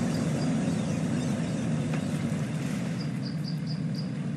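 Pickup truck engine idling with a steady low hum, while a bird calls in runs of quick high chirps near the start and again about three seconds in.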